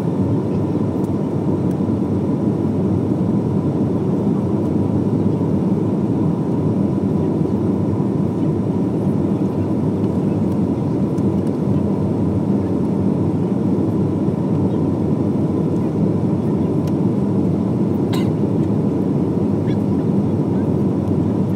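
Steady engine and airflow noise inside the cabin of an Airbus A320-200 on final approach. A faint steady high tone runs through it, and there is a single brief click near the end.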